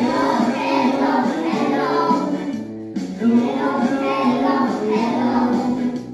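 A children's song: child voices singing over instrumental music, with a brief pause between phrases about three seconds in.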